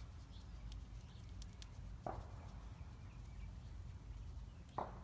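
Faint handling of a rope being tied into an overhand knot: a few light ticks and two brief rustles, about two seconds in and near the end, over a steady low hum.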